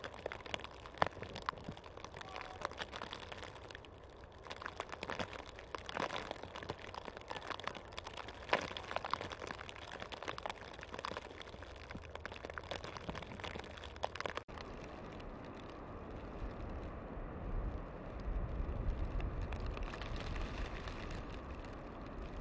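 Outdoor snowfall ambience: a soft hiss with many small, irregular ticks and taps of snow falling on branches and twigs. About two-thirds of the way through, the sound cuts to a steadier hiss with a low rumble underneath.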